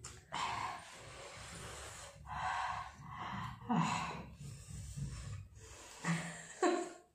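A woman breathing hard through the mouth in about five sharp, noisy breaths, two of them with a brief voiced moan. It is the panting of a mouth burning from an extremely hot chili chip.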